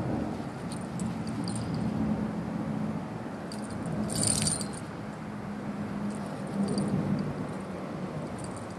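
Light metallic jingling in short clusters, loudest about four seconds in, over a steady low motor hum.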